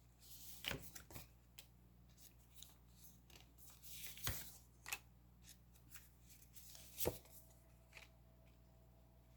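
Fortune-telling cards being shuffled and laid out on a table: faint rustling with a few soft slaps and taps at irregular moments, the clearest about four and seven seconds in.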